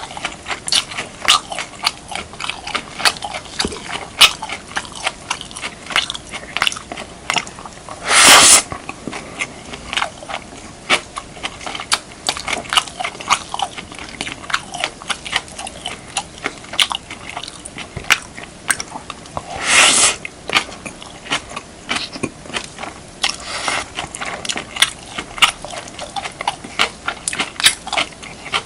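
Close-miked mouth sounds of eating beef, kimchi and rice: wet chewing with rapid smacks and crunches, several a second. Twice, about a third and two thirds of the way through, a louder rushing noise lasting about half a second stands out.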